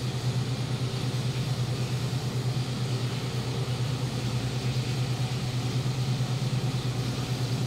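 Steady low machine hum, unbroken and even in level.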